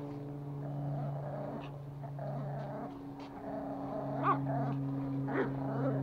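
Pomeranian puppy growling in rough stretches while tugging on a rope toy, with a couple of short higher-pitched yips in the second half.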